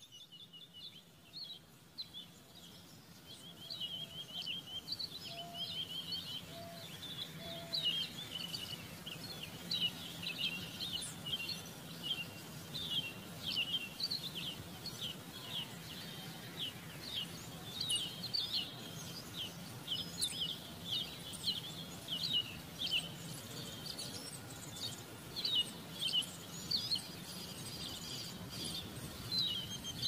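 Small birds chirping: a dense run of short, high chirps overlapping one another, growing louder over the first few seconds.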